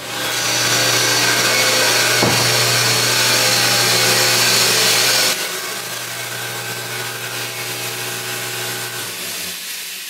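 Dairy barn machinery running: a steady electric-motor hum under a loud rushing noise. The noise drops sharply about five seconds in, and the hum cuts off shortly before the end.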